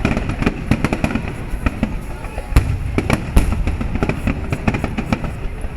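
Fireworks finale: a dense, rapid run of bursts and crackling, with a few heavier booms near the middle.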